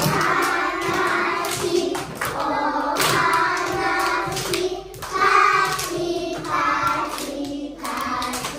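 A class of young children singing together with a woman's voice leading, clapping along to an action song, claps roughly once a second.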